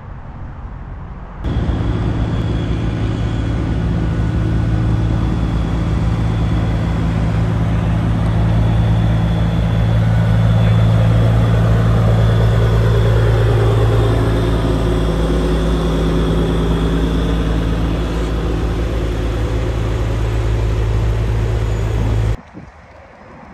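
Semi truck's diesel engine idling at close range: a loud, steady low hum. It begins abruptly about a second and a half in and cuts off shortly before the end.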